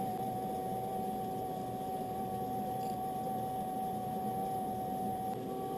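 Steady hum with one constant mid-pitched tone from a running home distillation rig: the small pump circulating ice water through the condenser coil, with the butane camping stove burning under the sealed kettle.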